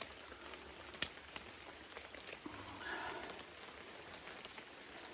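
Light rain pattering steadily, with a few sharp clicks in the first two and a half seconds, the loudest about a second in.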